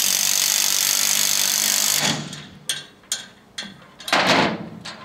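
Cordless drill spinning the screw of a SELF load binder to tighten a chain, running steadily for about two seconds and then winding down and stopping. A few metal clicks follow, then a short clatter of metal about four seconds in.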